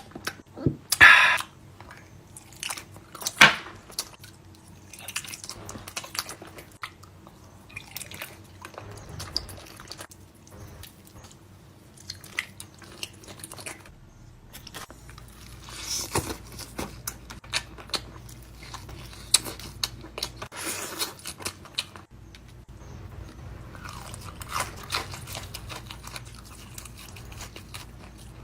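A person biting into and chewing honey, with crisp crunching bites and wet chewing. The sharpest bites come about a second in and again a few seconds later.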